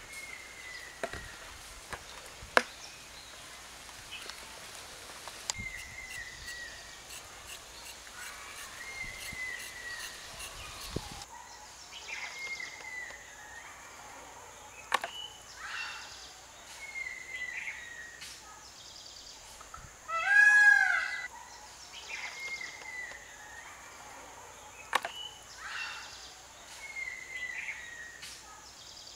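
Birds calling: a short falling chirp repeated every second or two, and a louder, rapid call about two-thirds of the way through. A knife taps a cutting board a few times as vegetables are cut, over a steady high tone in the background.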